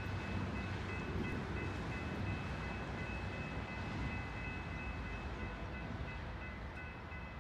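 Road traffic, a steady stream of cars driving past, with a low rumble of tyres and wind. A faint high-pitched ringing tone keeps breaking off and resuming.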